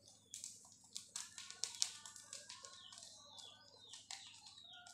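Faint crinkling and tapping of a small plastic electrolyte-powder sachet as it is handled and its powder is shaken into a ceramic mug. A few short, faint pitched calls sound in the background.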